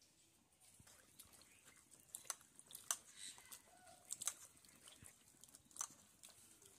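Dry twigs snapping and crackling faintly in a small, just-lit fire of twigs and dried dung cakes under an iron wok, with a few sharp snaps scattered through.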